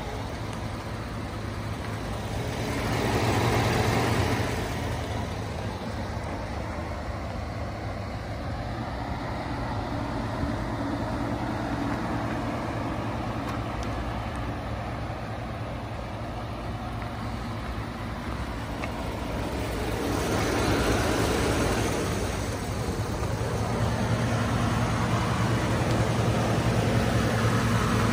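2014 Ford F-150 pickup's engine idling steadily, heard from outside the truck, louder near the end as the sound is picked up from under the front end. Two brief rushes of broad noise, about three seconds in and again about twenty seconds in.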